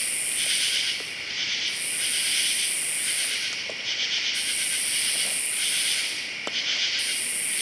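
Night insect chorus of crickets and other singing insects, a steady pulsing trill with a higher, shriller layer that swells up and dies away about every two and a half seconds.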